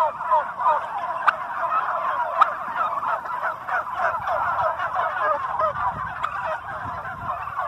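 A large flock of white domestic turkeys gobbling all together, a dense, unbroken chorus of overlapping gobbles. Two sharp clicks cut through it, about a second and two and a half seconds in.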